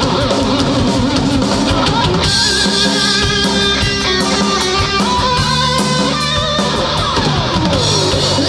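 Live hard rock band playing an instrumental passage: electric guitar playing held notes over a drum kit, with a falling pitch slide on the guitar near the end.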